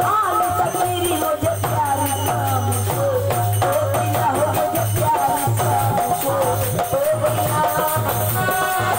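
Live Hindi devotional bhajan: a woman sings over a harmonium, with a steady drum beat and a jingling rattle keeping the rhythm.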